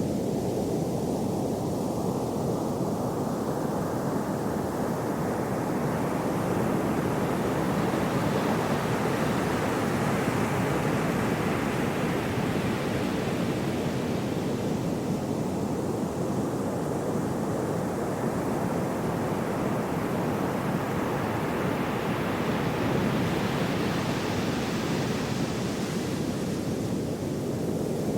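Steady rushing of gentle sea waves with no distinct breaks, slowly brightening and softening in two long swells.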